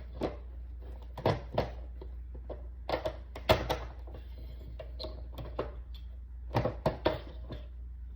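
Plastic hand-press vegetable chopper being pressed shut again and again: clusters of sharp plastic knocks and clacks as pepperoni and cheese are forced against its blade grid.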